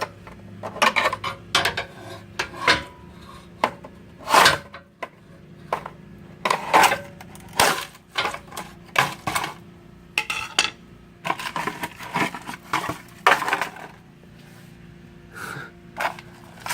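Steel pry bar clanking and scraping against a Jeep's cross member and transmission pan, in irregular sharp metallic knocks, as it works at a plastic bottle wedged between them.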